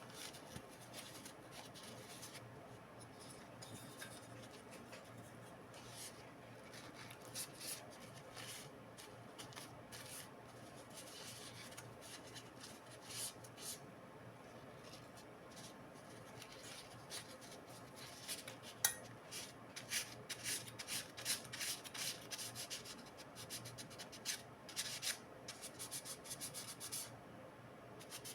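Hand work on laptop parts: irregular rubbing and scraping strokes, sparse at first and coming thick and fast over the second half, with one sharp click about two-thirds of the way through.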